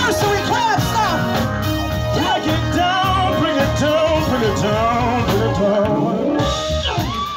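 Live band playing an upbeat rock-and-roll groove, with a drum kit and electric bass guitar, and a voice over the music.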